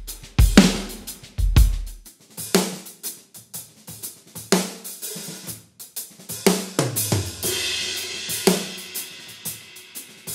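Groove Drum Co. Pancake shallow-shell drum kit played in a groove: snare, hi-hat and tom strokes, with Paiste cymbals. Deep kick-drum thumps are heard only in the first two seconds, the sound thin in the low end as picked up by the overhead mics. About seven seconds in a tom stroke falls in pitch and a crash cymbal rings on for a few seconds.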